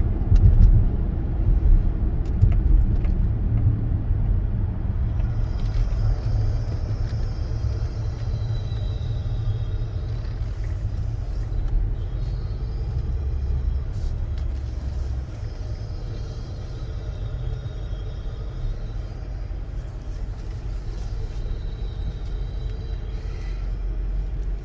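Supercharged Range Rover heard from inside the cabin during a sharp low-speed turn: a steady low rumble, with a faint high-pitched grinding squeal from the steering through the middle of the turn. This is the noise that grows louder the more the wheel is turned and only when moving forward, which the mechanic puts down to a noisy electric power steering rack.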